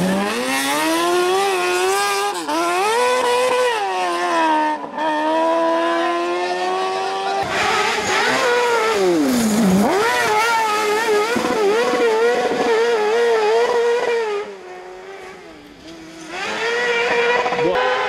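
Kart cross buggies' high-revving motorcycle engines screaming at high rpm, the pitch climbing and falling as they accelerate, shift and lift through corners. Twice the engine note drops steeply and climbs again, and near the end it fades for about two seconds before another engine comes in.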